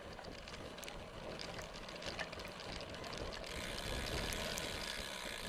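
Mountain bike riding over a dirt and leaf-covered trail: steady tyre and trail noise with the rattle and frequent clicks of the bike's chain and drivetrain.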